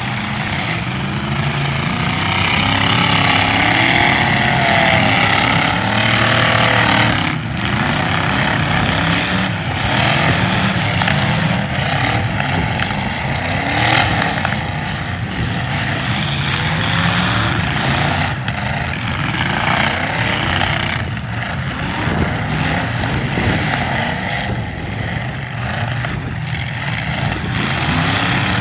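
Several demolition derby car engines revving hard over one another, their pitch rising and falling. There are a couple of sharp bangs, one about seven seconds in and another about halfway through.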